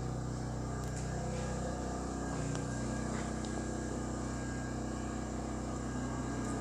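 MIG welding machine just switched on, its cooling fan and hum running steadily, the pitch of the hum shifting about two seconds in.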